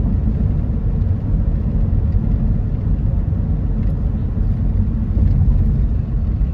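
Car driving at steady speed: a continuous low rumble of tyres and engine.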